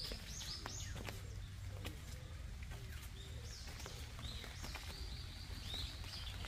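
Birds chirping repeatedly in short rising and falling calls, with scattered sharp ticks and a low steady rumble underneath.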